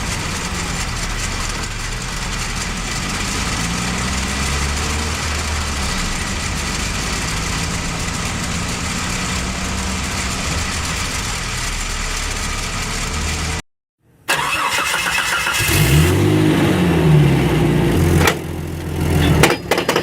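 Manual transmission running with a constant, steady gear noise, typical of gears whose teeth are all slightly worn or stripped. After a short cut about two-thirds through, a second recording follows in which the engine revs up and back down, with irregular knocking near the end.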